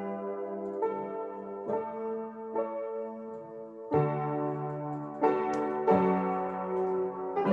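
Electronic keyboard playing a slow piece in held chords, a new chord struck about once a second, with a louder chord about four seconds in.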